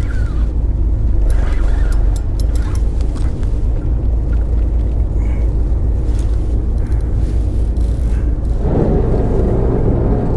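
Boat engine running with a steady low rumble, growing fuller and louder about nine seconds in.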